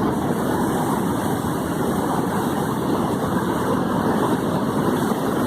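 Waterfall in high flow after heavy rain, a steady, unbroken rush of water.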